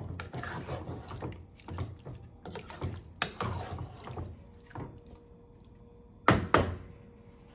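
A wooden spatula stirs thick marinated chicken and masala in a pot, making irregular wet scraping and squelching strokes. Near the end come two sharp knocks in quick succession.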